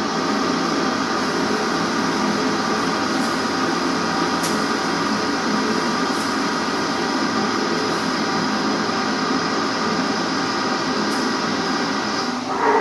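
Metalworking machine tool running steadily during machining, a constant hum with a whine of several steady tones over it. Near the end the sound briefly swells and shifts in pitch.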